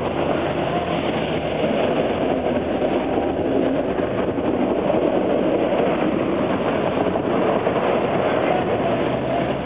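A TTC articulated streetcar (ALRV) rolling past close by on its rails, a steady rumble and rattle of steel wheels, mixed with cars driving by on the wet road.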